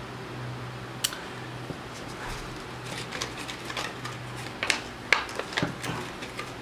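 Scattered light clicks and crinkles of a plastic produce package and its paper label being handled, over a steady low hum.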